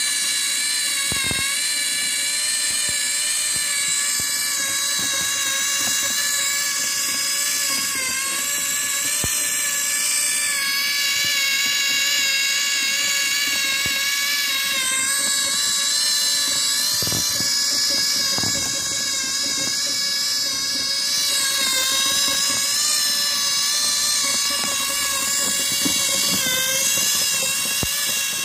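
Small electric motor driving a LEGO Technic gear train, a steady high-pitched whine that wavers slightly in pitch, with a few light clicks from the mechanism.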